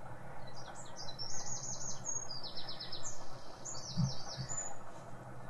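A small songbird singing: several phrases of quick, high trills, one after another, over a steady low hum, with a brief low thump about four seconds in.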